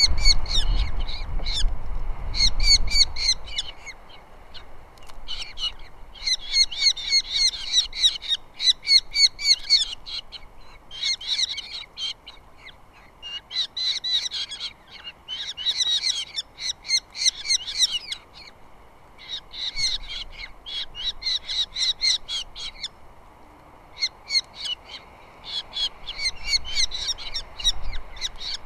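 Osprey calling at the nest: bout after bout of rapid, high whistled chirps, each series lasting a second or two with short pauses between. A low rumble underlies the first few seconds.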